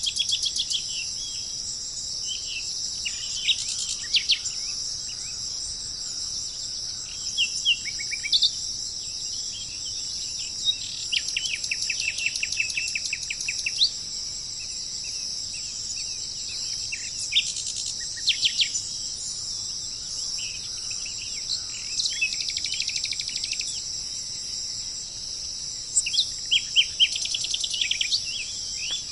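Tropical forest soundscape: a steady, high-pitched chorus of insects runs throughout, with birds calling over it. The bird calls include several quick trills of rapidly repeated notes and scattered single chirps.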